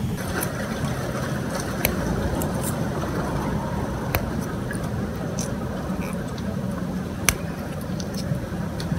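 Steady low outdoor rumble with scattered small, sharp clicks and crackles as hands press the roots of a kalanchoe cutting into loose potting soil in a pot; the sharpest click comes about seven seconds in.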